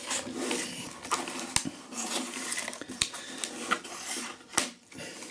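Folding knife blade cutting and prying through a clear plastic blister pack, the stiff plastic crackling and scraping, with a few sharp clicks.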